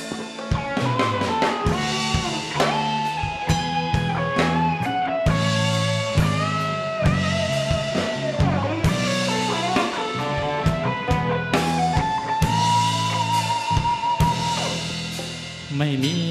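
Live rock band playing an instrumental break: a drum kit keeps a steady beat under a bass line while an electric guitar plays a sustained, singing lead melody.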